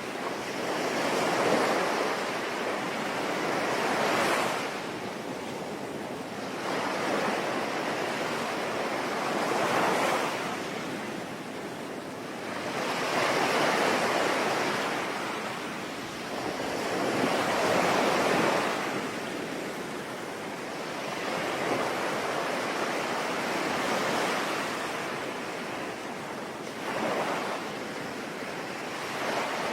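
Sea waves breaking and washing in, swelling and falling away about every four to five seconds, over a steady hiss of falling rain.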